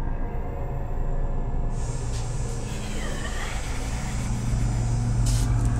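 Steady low mechanical rumble, with a hiss that comes in about two seconds in and a few quick sharp clicks near the end.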